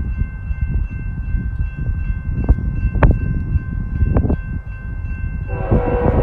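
Railroad grade-crossing warning bell ringing steadily over a low, uneven rumble. Near the end an approaching BNSF freight locomotive's horn comes in with a loud chord.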